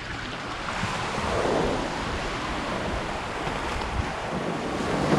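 Surf washing up on the beach, one wave swelling in about a second and a half in, with some wind on the microphone.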